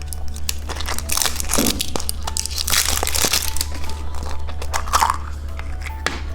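Plastic packaging crackling and crinkling with sharp plastic clicks as a candy surprise egg is unwrapped and opened, the crackling densest about a second in. Faint background music plays under it.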